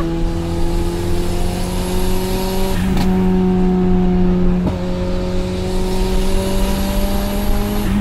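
Turbocharged Tofaş Doğan's four-cylinder engine heard from inside the cabin, running steadily at highway speed. Its pitch creeps up slowly, with a small step up about three seconds in and another near the end.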